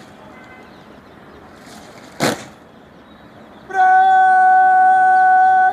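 Parade-ground drill: a single sharp thump about two seconds in, then near the end a loud, drawn-out word of command held on one steady pitch for about two seconds.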